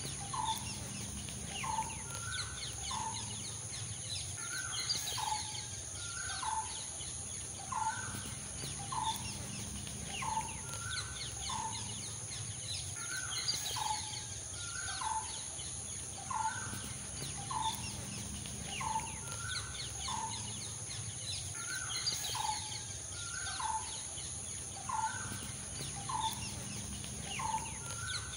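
A bird calling over and over, short calls repeating a little more than once a second, with a steady high whine in the background.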